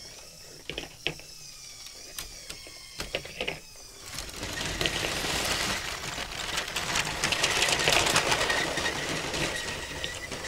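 Toy-scale electric motors and plastic gearing: the vintage LEGO 725 12-volt train's motor whines and its wheels click over the track. From about four seconds in, a much louder, fast clattering gear noise with a steady high tone joins, typical of the motorized LEGO 10178 AT-AT's walking gearbox.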